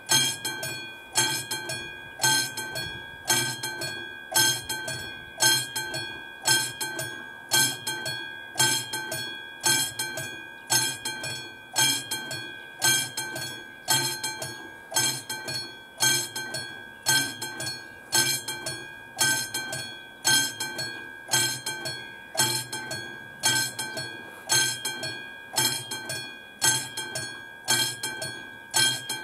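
Mechanical warning bell of an AŽD 71 level-crossing signal ringing in steady repeated strokes, about one loud stroke a second, each ringing on and dying away. The crossing warning is active: a train is approaching.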